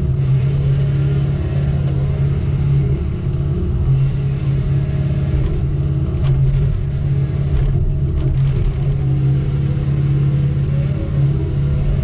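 Heavy logging machine's diesel engine running steadily, a loud even drone, with a few light clicks and rattles about six to nine seconds in.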